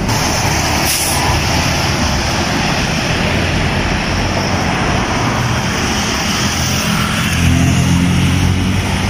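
Road traffic passing: a steady rush of tyre and engine noise from vehicles driving by, with an engine's low hum growing louder in the last couple of seconds.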